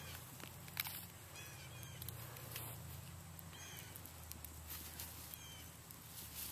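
Small birds chirping in short, high calls every second or so, with a few sharp ticks over a faint steady low hum.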